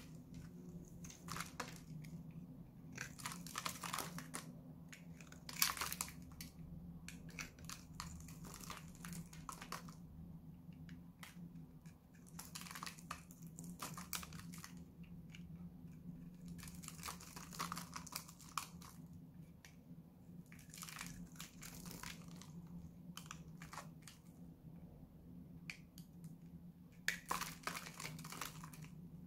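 Utility knife blade shaving a hard, dry bar of Lux soap: crisp scraping and crumbling in short runs of strokes with brief pauses between them.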